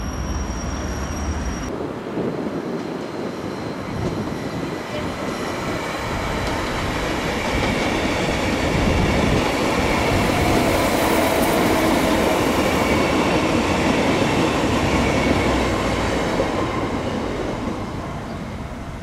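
Südostbahn (SOB) electric multiple unit passing close by, its wheels running on the rails with a steady whine over the rumble. It grows louder to a peak in the middle and fades near the end.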